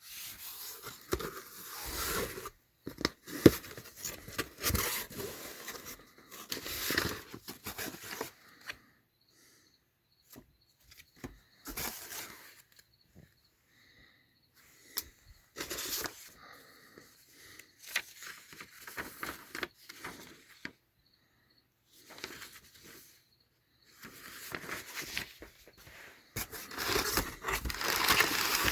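A shipping package being opened by hand: tape and cardboard tearing, with packing material crinkling and scraping in irregular spells broken by short pauses and a few sharp clicks and knocks.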